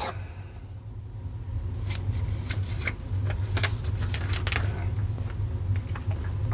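Paper instruction booklet being handled and its pages turned, with light rustles and small clicks, over a steady low hum.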